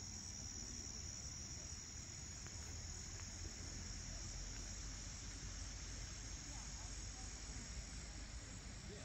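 A summer insect chorus, a steady high-pitched drone of crickets or similar insects that does not let up, with a low rumble underneath.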